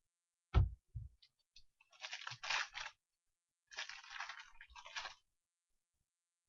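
A dull thump about half a second in, then two stretches of crinkling and tearing as a foil trading-card pack wrapper is ripped open.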